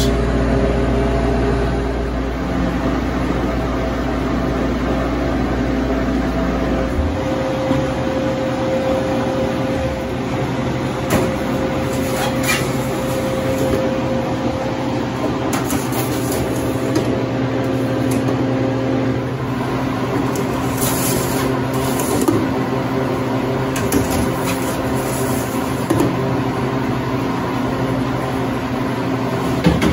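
Harvest Right home freeze dryer running as it cools its chamber: a steady refrigeration hum, with a few light clicks and clanks as metal trays of bread are slid onto the shelves.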